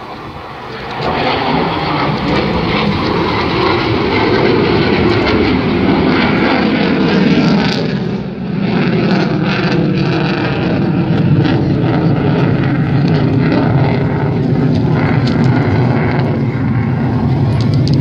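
F-16 fighter jet flying past: loud, steady jet engine noise that swells about a second in, dips briefly around the middle and then holds, with a faint tone sliding down in pitch.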